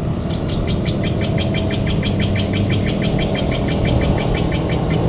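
A steady low mechanical rumble, like a running engine, under a fast even run of short high chirps, about six or seven a second, that starts just after the beginning and stops near the end.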